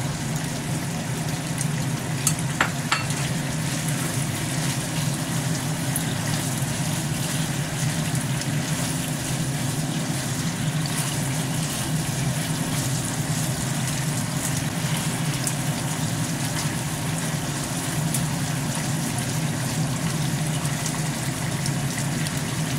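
Thick soy and oyster sauce bubbling and sizzling in a frying pan of chicken and button mushrooms, with a spatula stirring and scraping now and then, a few clicks about two to three seconds in. A steady low hum runs underneath.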